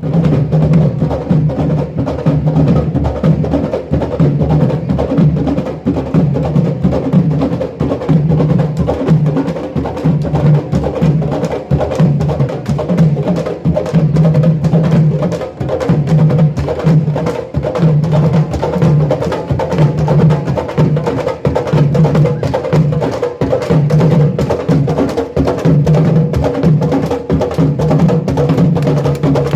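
Percussion group playing a dense, steady rhythm: drums with a repeating low beat and sharp woody clicks on top.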